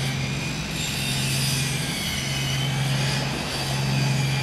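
Car ferry's engines idling at the berth: a steady low drone with an even hiss above it.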